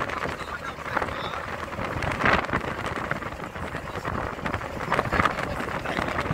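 Wind buffeting the microphone aboard a moving river boat, a crackling rush over the boat's steady running noise.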